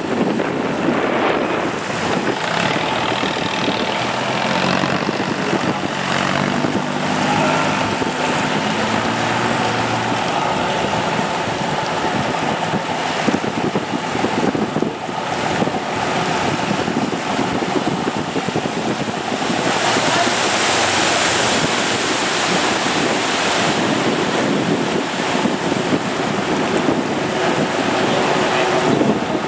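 Wind buffeting the microphone over rushing water and a running boat engine, with faint engine hum in the first third. The hiss of water turns brighter for a couple of seconds about two-thirds of the way through.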